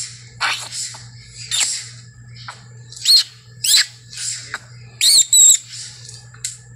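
A monkey caught in a Komodo dragon's jaws screaming in distress: a string of short, high-pitched shrieks, some sliding up and down in pitch, the loudest a little past halfway.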